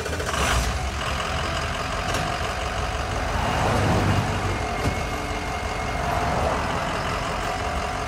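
Sound effect of a heavy truck engine running: a loud, steady low rumble with a rushing hiss, swelling a little around the middle and cutting off sharply at the end.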